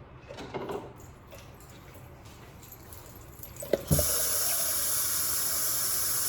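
A few faint knocks, then a thump and a tap turned on. Water runs steadily and loudly into a sink for about two seconds and is shut off suddenly.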